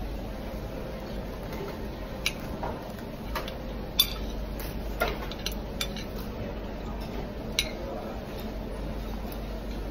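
Metal spoon and fork clinking against plates as food is cut and scooped: scattered sharp clinks, about half a dozen, the loudest about four seconds in, over a steady low room hum.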